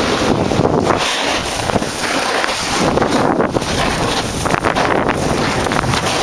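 Wind buffeting the camera's microphone: a loud, steady rush with small flutters while the camera is carried down a snowy slope.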